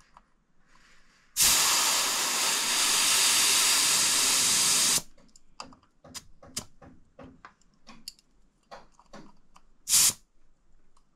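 Air hissing steadily out of a motorcycle's front tyre valve for about three and a half seconds as the tyre is let down. A short hiss follows near the end as a pressure gauge is pressed onto the valve, with small clicks of handling in between.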